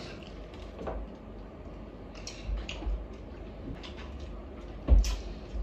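Eating at a table: scattered light clicks of cutlery against plates and a foil tray, with soft chewing, and a sharper knock about five seconds in.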